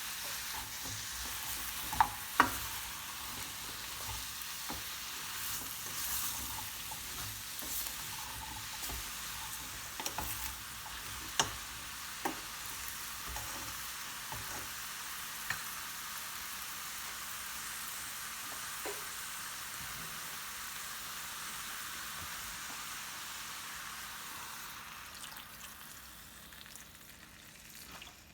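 Food sizzling as it fries in oil in a pan while a spatula stirs it, with a few sharp clicks of the utensil striking the pan. The sizzle dies down near the end.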